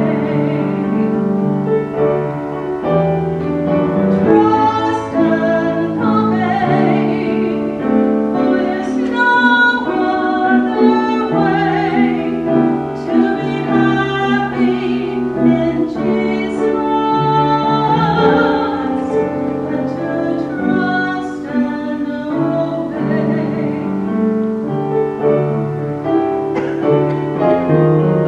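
A woman singing a solo in a trained, classical style with vibrato, accompanied on piano.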